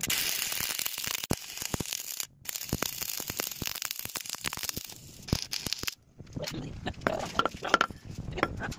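Stick (arc) welding a steel handle onto a sledgehammer head: the arc crackles and sizzles with sharp pops, breaks off briefly about two seconds in and stops about six seconds in. A few scattered clicks and knocks follow near the end.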